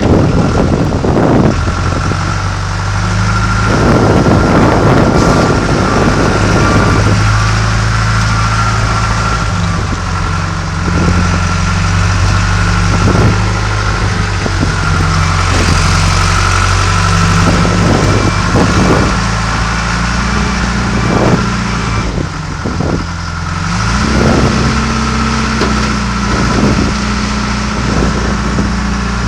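John Deere 310G backhoe loader's diesel engine running steadily, with a high steady whine over it and scattered knocks and clunks. About three-quarters of the way through, the engine speed dips and then picks up again.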